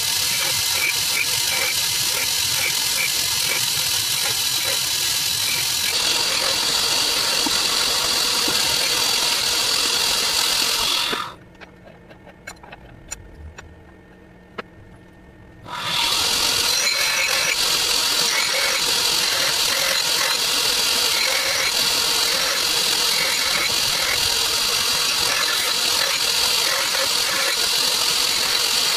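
Belt grinder running while a steel knife blade is ground freehand against the belt. The grinding noise cuts off abruptly about eleven seconds in, leaving a quiet stretch with a few faint clicks for about four seconds, then comes back just as suddenly.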